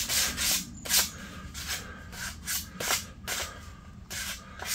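Hand sanding: a folded piece of sandpaper rubbed back and forth in short, quick strokes, about two to three a second, over a painted light housing, scuffing up fresh paint.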